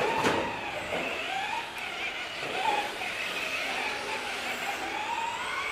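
RC touring car's motor and drivetrain whining, the pitch rising and falling as the car speeds up and slows through the track. A sharp click comes about a quarter second in.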